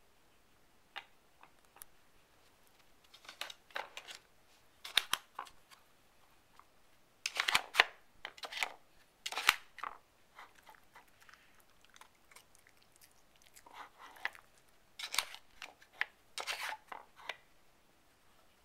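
A Shiba Inu crunching dry dog treats in short bursts of crackling bites. The loudest bursts come about seven to ten seconds in and again around fifteen to seventeen seconds.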